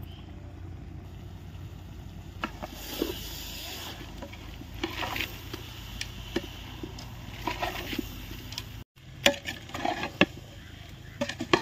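Prepared masala paste being scraped from a bowl into a cooking pot: a utensil scraping in short bursts, with a few sharp clinks.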